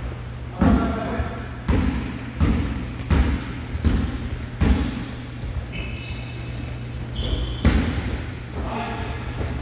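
Basketball bouncing on a hardwood gym floor: a run of sharp bounces about one every three-quarters of a second for the first five seconds, then another near eight seconds. Short high sneaker squeaks come around six to seven seconds in.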